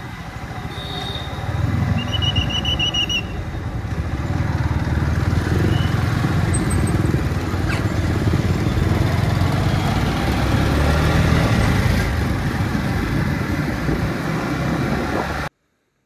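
Yamaha MT-15's single-cylinder engine running while the bike is ridden along a road, with heavy low road and engine rumble. A couple of short high tones sound near the start, and the audio cuts to silence just before the end.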